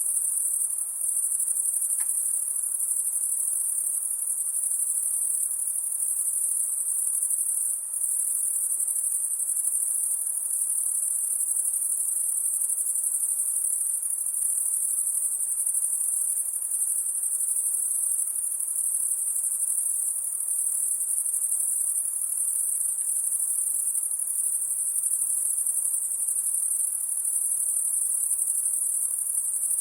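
High-pitched night insects, a continuous shrill chorus at a steady level, with two brief dips about a second in and about eight seconds in.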